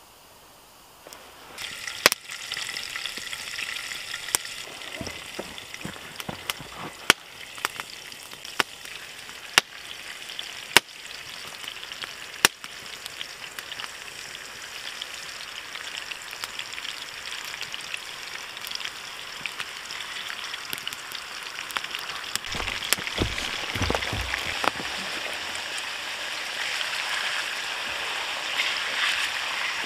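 Slices of meat frying in hot fat in a frying pan over a campfire: a sizzle starts about a second in and slowly grows louder. Sharp pops come every second or two in the first half, and there are a few dull knocks past the middle.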